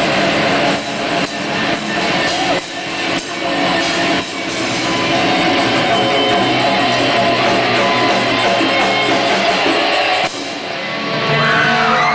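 Live rock band playing loud electric guitars, bass and drums. Drum hits stand out in the first few seconds, then a sustained wash of guitars runs until a short drop about ten seconds in. Near the end, high guitar tones slide up and down in pitch.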